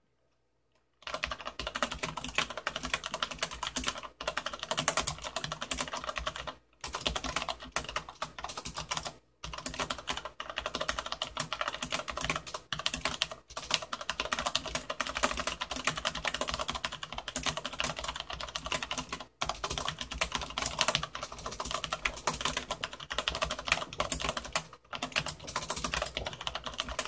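Continuous typing on a Corsair K70 LUX mechanical keyboard with Cherry MX Brown switches, a dense stream of key clicks starting about a second in, broken by short pauses every few seconds. Picked up by a phone about 20 cm from the keyboard.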